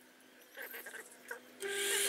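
Bench-top metal lathe turning a piece of tree branch: about one and a half seconds in it starts up suddenly, a steady motor whine under a loud hiss of the tool cutting the wood. Before that, only a few faint short high whines.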